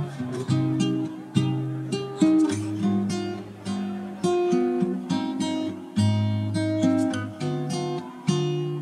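Background music: a strummed acoustic guitar, chords struck about every half second to a second and changing as it goes.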